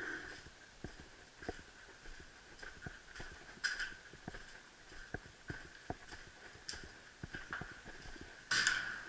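Footsteps walking on a gritty, debris-covered floor, irregular knocks about one or two a second, with a louder crunching step near the end.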